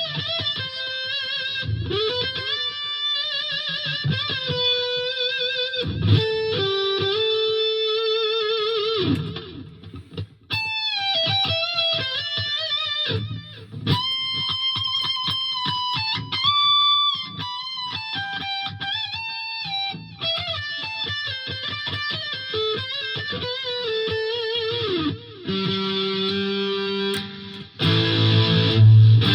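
2006 Gibson Les Paul Classic electric guitar with a Seymour Duncan SH-1 humbucker, played through a Fender Mustang LT50 modelling amp on a lead setting with light overdrive. It plays a melodic single-note solo of held notes with vibrato and string bends, turning to fuller, louder chords near the end.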